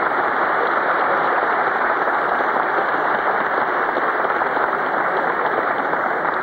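Audience applauding steadily, a dense clapping of many hands.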